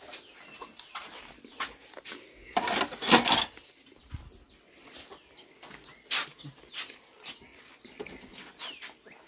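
Chickens clucking in the background, with small chirps, and a louder clatter about three seconds in.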